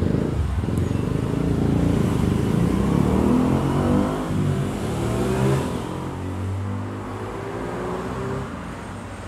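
A motor vehicle's engine passing by, its pitch rising and then falling away; it is loudest in the middle and fades after about six seconds.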